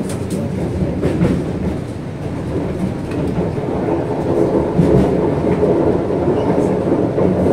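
MTR Kwun Tong line C-Train running: a steady low rumble of wheels on track with a few sharp clicks. A steady motor whine comes in about halfway through.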